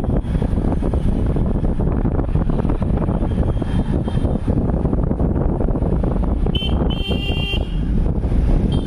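Steady low rumble of a moving vehicle with wind buffeting the microphone. Near the end a vehicle horn honks, a short toot then a longer one.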